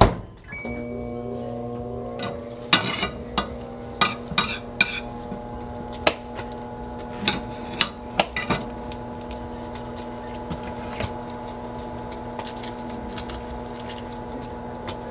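Microwave oven running with a steady electrical hum, starting just after a click and a short beep. Sharp clinks of dishes and cutlery sound over it, several in the first nine seconds or so.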